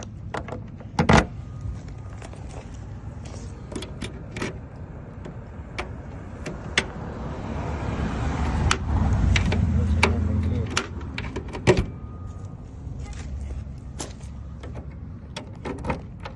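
Sharp metal clicks and rattles of a freshly cut key being pushed into and turned in truck toolbox compartment locks, scattered irregularly, the loudest about a second in. A low rumbling noise swells up in the middle for a few seconds and fades.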